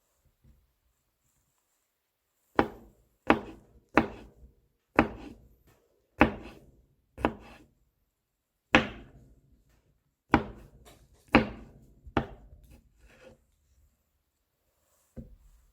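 Kitchen knife mincing garlic on a cutting board: about a dozen separate chops, roughly one a second and slightly irregular, starting a couple of seconds in.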